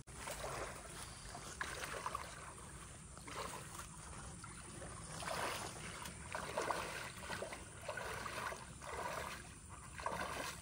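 Water splashing and sloshing in uneven surges about once a second, with a few sharp knocks.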